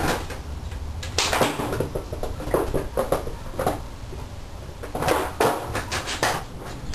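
Skateboard clacking on concrete during flatland freestyle tricks: the deck, tail and wheels knock and slap the ground in clusters of sharp clacks, with a steady low rumble underneath.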